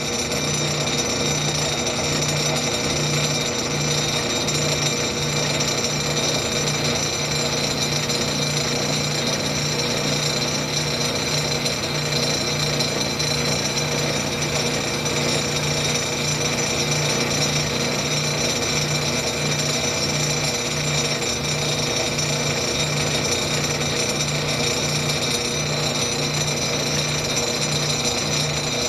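South Bend Model A lathe running under its electric motor and belt drive while taking a light finishing facing cut across a 1.5 in nut threaded onto the spindle. A steady machine whine with a low hum that throbs at an even rhythm.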